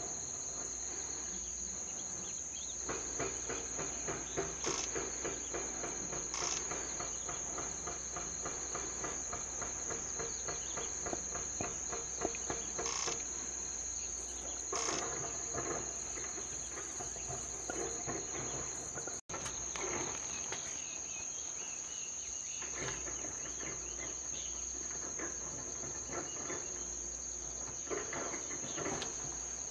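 Insects calling: a steady, high-pitched continuous trill, with fainter irregular sounds beneath it. The sound drops out for an instant about two-thirds through.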